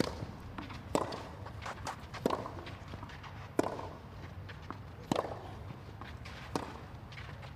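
Tennis rally on a clay court: sharp racket-on-ball strikes alternating between the two players about every one and a half seconds, with fainter ticks between them, over a low steady hum.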